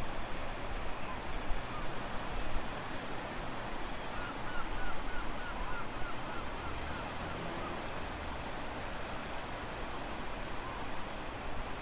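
Steady rushing background noise with a low rumble, and a quick run of faint high chirps about four seconds in.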